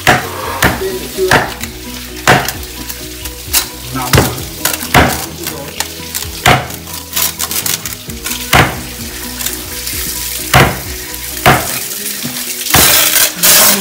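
Wet squelching and rubbing as hands work chopped seasoning into a large piece of raw grass carp in a stainless steel pot, with sharp slaps or knocks about once a second as the fish is turned against the pot.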